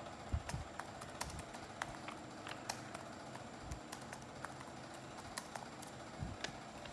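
Hands folding and creasing a small sheet of old newspaper, making scattered faint crackles and clicks of paper, with a few soft thumps.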